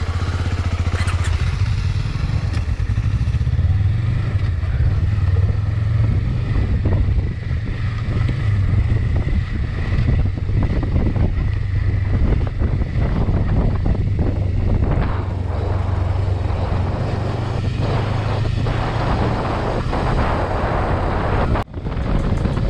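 Motorcycle running steadily under way, a constant low engine drone with wind noise over it; the sound drops out briefly near the end.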